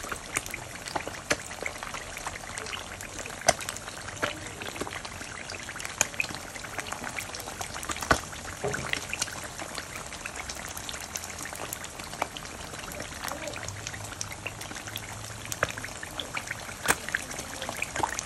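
Eggs frying in hot oil in a pan: a steady sizzle with frequent sharp pops and crackles, a few of them louder.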